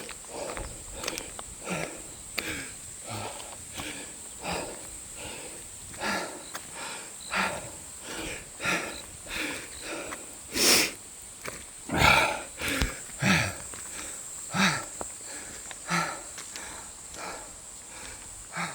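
A runner's heavy, rhythmic panting, a hard breath roughly every two-thirds of a second, out of breath from running uphill; a couple of louder gasps come about halfway through.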